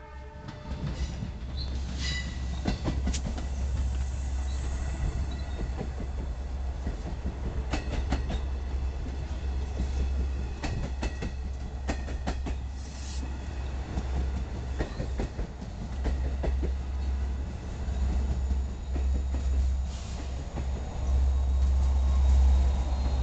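Long Island Rail Road push-pull train of C3 bi-level coaches, with a DM30AC diesel locomotive at the rear, rolling past: wheels clicking irregularly over rail joints and switches over a steady low rumble, with faint high wheel squeal early on.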